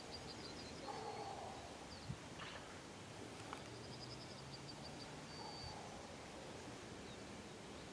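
Quiet open-air ambience with small songbirds singing high, thin trills: one near the start and a longer one about halfway through. A faint click comes about two seconds in.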